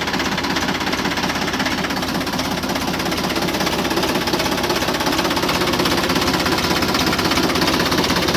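Engine of a homemade kids' mini tractor running steadily with a fast, even pulsing beat.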